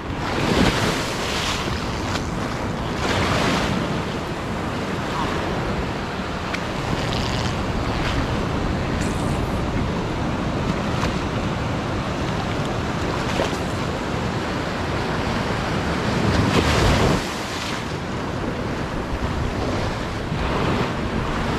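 Small surf waves washing up and sliding back over sand right at the microphone: a continuous wash with louder surges, the biggest about 17 seconds in.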